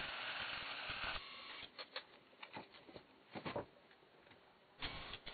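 Clicks and clatter from a cassette in the Pioneer T-818 cassette deck's transport mechanism, in several short clusters. A steady hiss cuts off about a second in.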